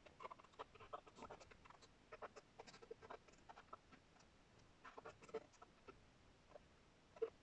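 Near silence broken by faint, scattered clicks and short snippets of sound: the TV's audio barely coming through, garbled.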